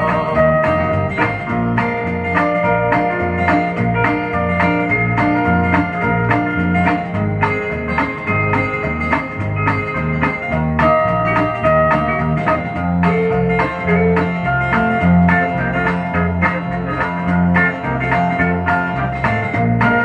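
Instrumental break of a country song played from a 7-inch vinyl single: lead guitar over bass and a steady beat, with no singing.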